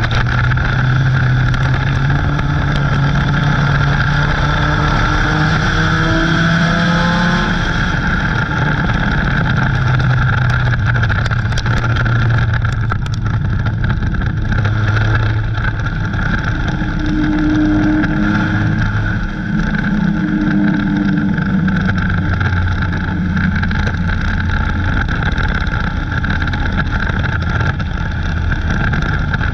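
Dirt-track race car's engine heard from inside the car at racing speed, loud and continuous over heavy rushing noise; about four seconds in its pitch climbs as it accelerates, then it holds at speed.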